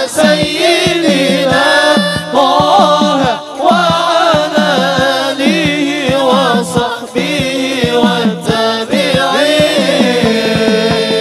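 A group of men singing an Arabic devotional song together into microphones, over fast hand-drum beats.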